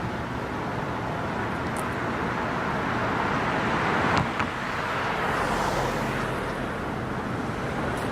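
Road traffic passing, a steady rush of tyre noise that swells in the middle, with a brief sharp click about four seconds in.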